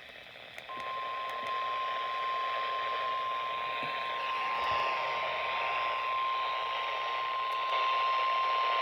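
NOAA Weather Radio warning alarm tone: a single steady 1050 Hz tone over radio static hiss, starting about a second in. It signals that a weather warning broadcast is about to follow.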